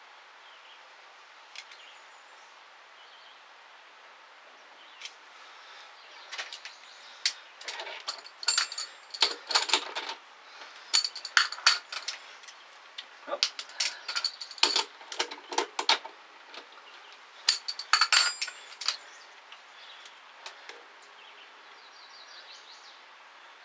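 Clusters of sharp metallic clicks and clinks, some ringing briefly, as a brass workpiece is set and clamped in a three-jaw lathe chuck with the lathe stopped. The clinking starts about five seconds in and dies away a few seconds before the end.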